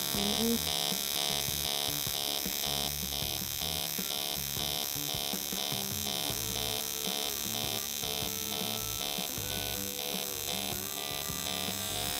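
TIG welding arc from a TEAMWELDER TIG 180 AC/DC puls welder in pulse mode, buzzing steadily with a regular beat a few times a second. The beat is the current switching back and forth between two settings, which lays a scaled bead on the sheet edge without filler wire.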